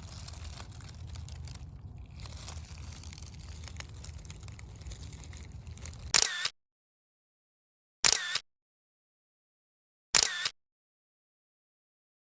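Faint rustling and handling noise in the woods, then the sound cuts to dead silence, broken three times by a short loud camera shutter click, about two seconds apart, as still photos are taken.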